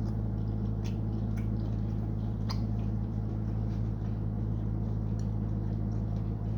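A person chewing and biting into food, with a few soft wet clicks and smacks, over a steady low hum.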